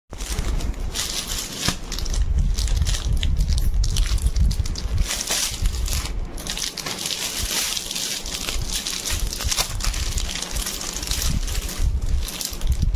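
Plastic garment packets and a courier bag crinkling and rustling as they are handled, over a low rumble.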